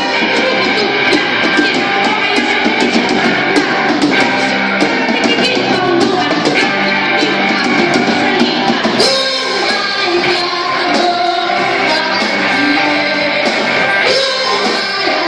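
Live rock band playing: a singer over guitar, electric bass and drum kit.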